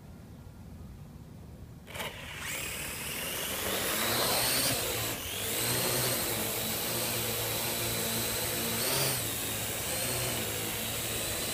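Parrot AR.Drone 2.0 quadcopter's four electric motors and propellers starting up about two seconds in at takeoff, rising quickly to a steady high whine as it flies, with small wavers in pitch.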